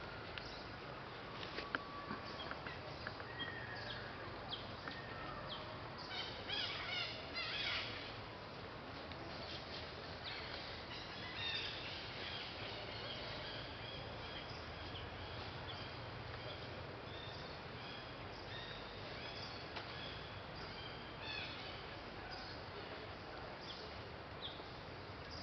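Birds chirping and trilling over steady outdoor background noise, with a few sharp clicks in the first couple of seconds.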